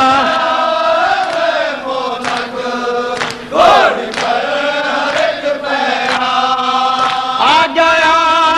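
Male voices chanting a noha, a Shia lament in Urdu, in long wavering sung notes, unaccompanied. Sharp slaps of matam chest-beating sound now and then through the chant.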